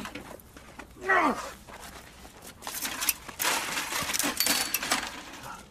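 A man's short cry falling in pitch, then a couple of seconds of scuffling and clattering as he tumbles onto the dirt yard and a bicycle is knocked down.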